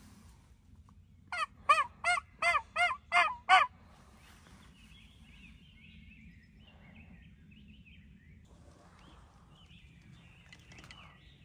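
A run of seven loud turkey yelps, about three a second, each note arching up and down in pitch. Faint songbird chirps follow.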